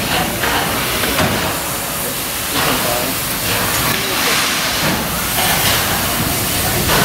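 Steam locomotive hissing steam steadily as it moves slowly out of its shed.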